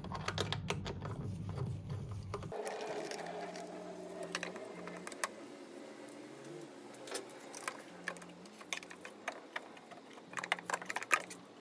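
Scattered metallic clicks, taps and scrapes of pry picks and hands working the automatic gearbox's oil pan loose from its seal and taking it off, with a quick run of clicks near the end.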